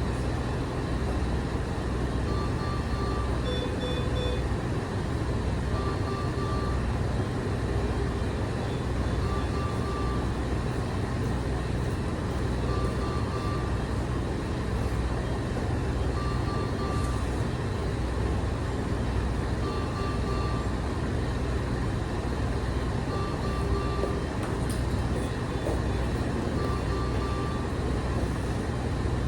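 Medical equipment in a patient room: a steady low hum, with short electronic beeps about every three seconds.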